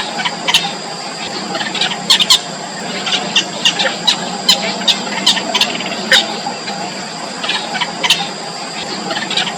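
Yellow bittern chicks calling in the nest: short, sharp, squeaky calls coming irregularly, at times several a second, over a steady background with a constant high-pitched tone.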